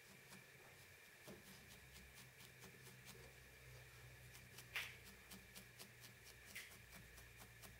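Faint, quick repeated stabbing of a barbed felting needle into wool over a felting pad, about three or four soft clicks a second, with one louder tap a little over halfway through.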